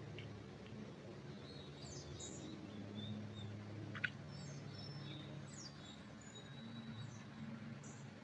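Forest birds chirping and whistling now and then in short high notes, with one sharp chip about four seconds in, over a faint steady low hum.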